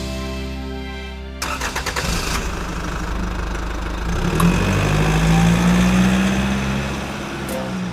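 A vehicle engine starting about a second and a half in, with a rapid rattle for the first second, then running steadily, loudest in the middle.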